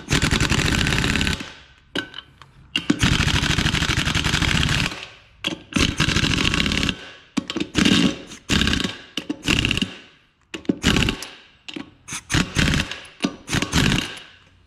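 Impact wrench hammering down the nuts on a bead-lock ring, pulling the ring down evenly onto the tire bead. It runs in two long stretches in the first five seconds, then in a string of short bursts as each nut is snugged up in turn.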